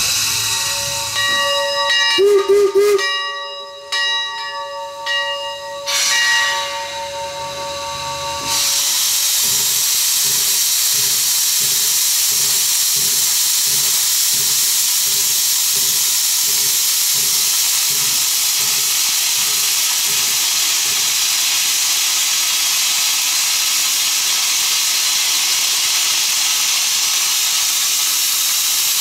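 Steam locomotive No. 331 sounds its steam whistle in a few blasts over the first eight seconds or so. Then a loud, steady hiss of steam venting from the open cylinder cocks takes over, with an even slow chuffing as the engine starts to move.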